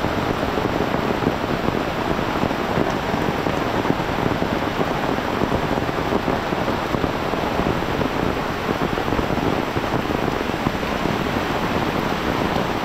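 Heavy rain falling on an umbrella over a swollen river in flood, together making one steady, unbroken rushing noise.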